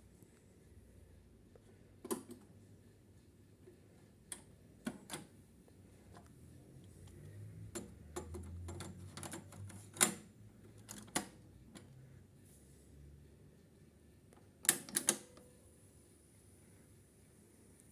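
Mechanical clicks and clunks of a Sansui D-77F cassette deck being operated by hand: single clicks, a pair, a cluster, then three quick clicks near the end, over a faint low hum that swells in the middle.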